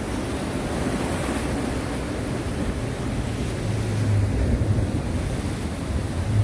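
Sea waves washing on the shore with a steady rush of surf, and wind on the microphone. A low steady hum comes in a little past halfway.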